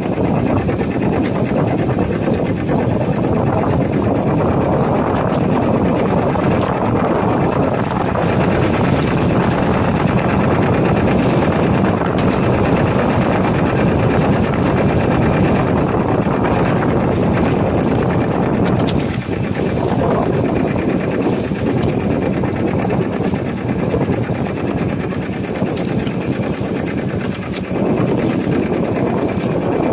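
Small outrigger fishing boat's engine running steadily under way, a loud, fast, even mechanical drone.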